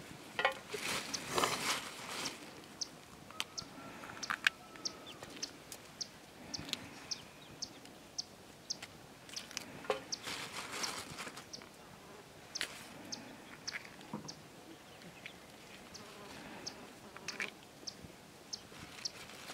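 Hand cutting a vegetable with a knife: a run of small, irregular clicks, with a louder rustle of a plastic bag about a second in and again about ten seconds in.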